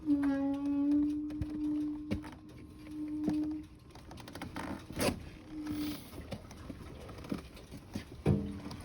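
Rear brake of a 2014 Indian Chieftain motorcycle moaning with a steady low tone as the pedal is lightly pressed while the bike rolls; the moan lasts about three and a half seconds, then sounds again briefly near the end. Scattered clicks and a sharp knock about five seconds in.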